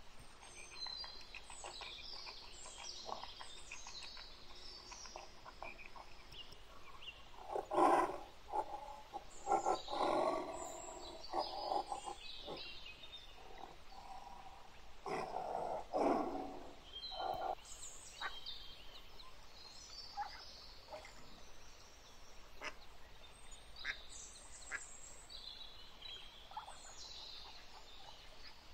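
A run of animal calls: short, high chirping calls scattered throughout, with louder, lower calls about a third of the way in and again past the middle.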